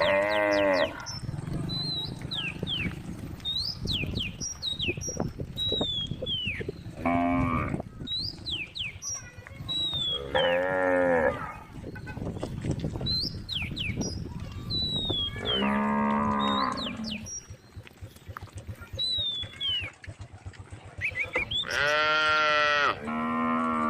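Cows mooing, about six long calls spread through the stretch, the last two coming nearly back to back near the end.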